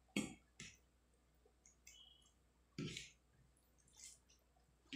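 Faint eating sounds: a few short, wet clicks and smacks, spaced a second or more apart, of a person eating rice and fish curry by hand.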